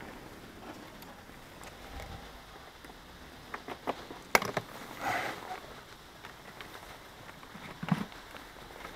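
Handling noise around a parked motorcycle: a few scattered clicks and knocks, the sharpest about four and a half seconds in, followed by a brief rustle and another knock near the end.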